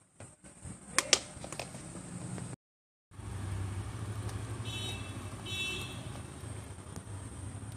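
A metal ladle clinks twice against an aluminium cooking pot while milky kheer is stirred. After a break, a steady low hum runs on, with two short horn-like beeps near the middle.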